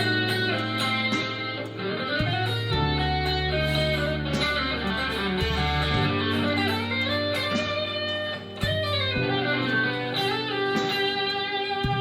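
Harley Benton Fusion III HSS electric guitar played through overdrive, a lead line with string bends over sustained low notes.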